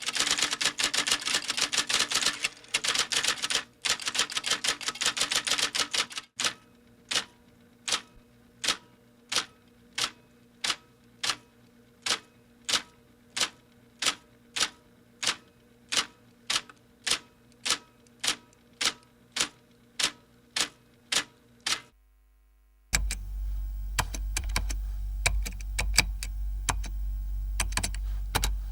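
Typing sound effects: a fast, dense run of key clicks for about six seconds, then single keystrokes evenly spaced about two a second. After a second's silence near the end, irregular typing clicks return over a low hum.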